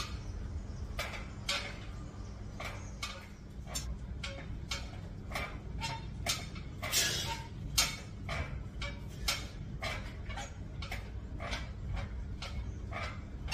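A man breathing hard in short, sharp breaths, about two a second, through a set of pull-ups, over a steady low hum.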